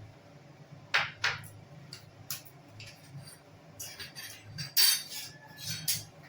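A spoon clinking and knocking against a bowl as spoonfuls of paste are added to marinating chicken: several sharp clinks, two close together about a second in and the loudest near the end.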